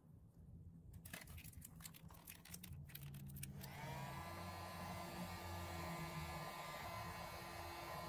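A few light clicks, then an electric heat gun is switched on a little before halfway through, its fan rising in pitch briefly and then running steadily with a hum, blowing hot air to shrink heat-shrink tubing over a soldered wire splice.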